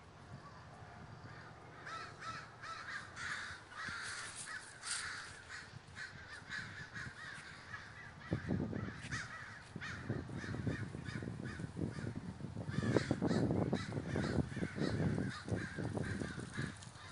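A large flock of American crows cawing, many calls overlapping without pause. From about eight seconds in a low rumbling noise joins them, and it is the loudest sound in the second half.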